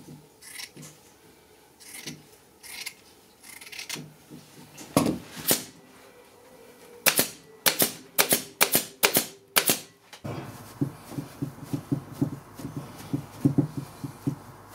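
Scissors snipping through jute burlap, then a staple gun firing staples into the wooden seat frame of a chair in a quick run of sharp clicks, about three a second. Near the end, hands rustle and press loose fibre stuffing.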